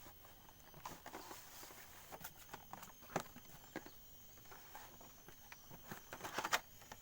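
A hair clipper's cardboard packaging being opened and handled: faint, scattered taps, clicks and rustling, busiest near the end.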